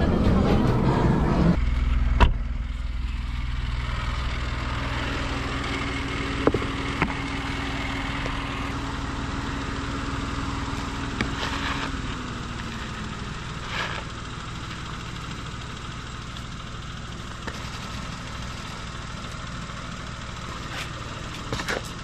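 Tata Nexon's engine idling steadily while parked, after a car door shuts about two seconds in. A few faint clicks and scrapes come from a plastic scoop working through cat litter in a tray.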